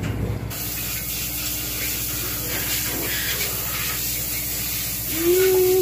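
Steady hissing, like rushing air, that starts abruptly about half a second in, with a few faint clinks. Near the end a voice starts up.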